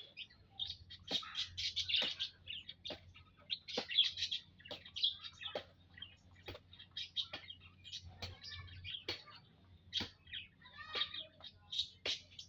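A flock of munias (emprit) chirping together in an aviary: many short, high chirps overlapping without pause, with some sharp ticks among them.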